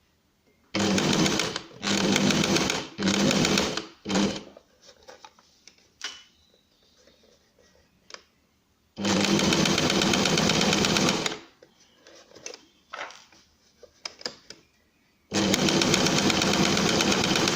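Electric sewing machine stitching a zipper on with a zipper presser foot, in stops and starts: four short runs in the first few seconds, then two longer runs of about two and a half seconds each, with faint clicks of handling between them.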